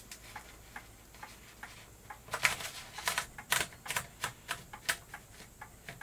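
Irregular mechanical clicks and ticks from an 1892 Chicago No. 1 typewriter as a sheet of paper is fed in and the platen is turned. The clicks are sharper and louder from about two seconds in.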